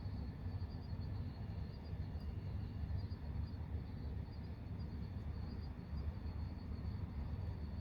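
Night ambience: distant road traffic as a steady low rumble, with crickets chirping in short, high, repeated pulses.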